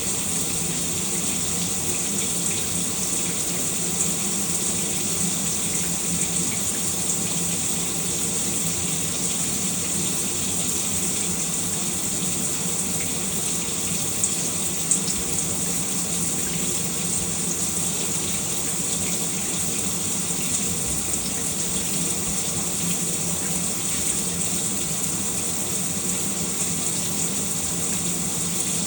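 A shower running steadily: water spraying from the showerhead and splashing down, a constant hiss with the odd faint drip or tick.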